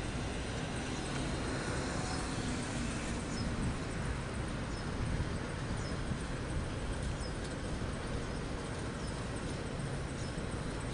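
Outdoor ambience over a large car park: a steady rumble of distant traffic and wind on the microphone. Faint short high chirps come now and then.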